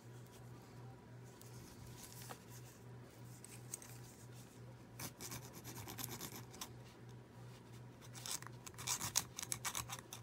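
Small hand file scraping on a Hot Wheels toy car part in short strokes, coming in clusters about halfway through and most densely near the end, over a faint steady hum.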